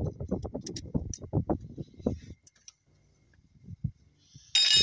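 Spanner clicking and tapping against the rocker levers of a stopped Cummins NT855 engine while the tappets are set: a quick run of sharp metallic clicks, a couple of soft knocks, then one bright ringing clink near the end.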